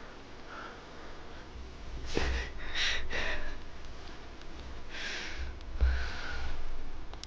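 A person's quick, short breaths and snorts through the nose: a cluster of puffs about two seconds in, and two more about five and six seconds in.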